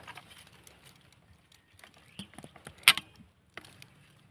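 Sharp metallic clicks and small rattles from a PCP air rifle and its scope being handled, a scattered cluster with one loud click just before three seconds in and another a little after.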